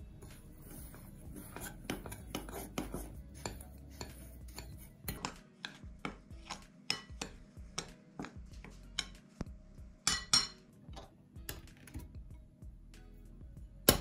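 Metal spoon stirring dry flour and sugar in a glass bowl, clinking and tapping against the glass many times. Just before the end, one loud sharp crack as an egg is struck on the bowl's rim.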